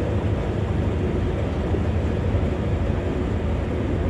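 Narrowboat's diesel engine running steadily at slow cruising speed, a constant low drone.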